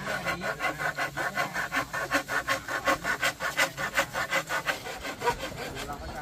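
Hand saw cutting through a bamboo pole in quick back-and-forth strokes, about four a second. The sawing stops about five seconds in.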